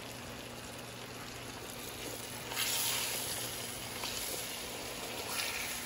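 Flour-dredged beef shanks frying in hot oil and butter in a Dutch oven: a steady sizzle that grows louder about two and a half seconds in.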